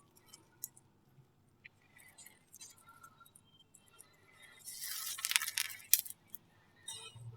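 Slime being handled: scattered small clicks and squishes, then a second or so of loud crackling and popping about two-thirds of the way in.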